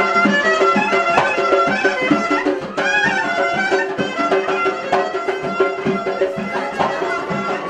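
Traditional folk music: a wind instrument plays a fast, ornamented melody over a steady held drone.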